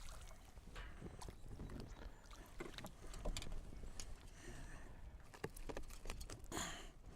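Faint scattered knocks and clicks in a small fishing boat with light water sounds, as a landed smallmouth bass is handled; a short hissing rush comes near the end.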